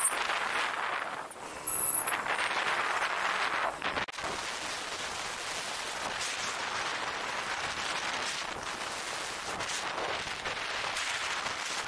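Wind and road noise rushing over a phone's microphone on a moving motorbike, a steady roar that briefly drops out about four seconds in.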